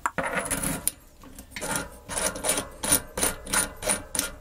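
Bicycle cassette's smallest cog and lockring being refitted by hand on the rear hub's freehub body: a metal scrape and click, then a run of light metallic clicks, about four a second.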